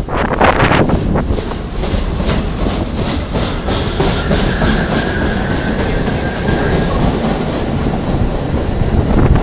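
Staten Island Railway R44 electric train cars rolling out of the station. The wheels click over the rail joints, and a faint high whine rises in the middle over a steady rumble.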